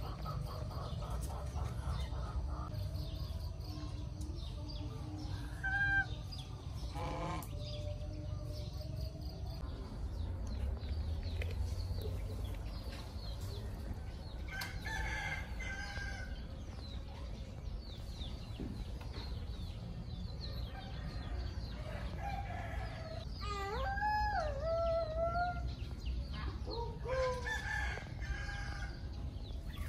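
Scattered farmyard fowl calls: a few short calls and one longer call that rises and falls about three-quarters of the way in, over a low steady rumble.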